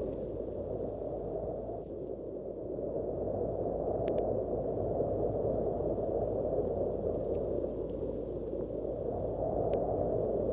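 Wind sound effect: a low, steady rush of wind that slowly swells and eases.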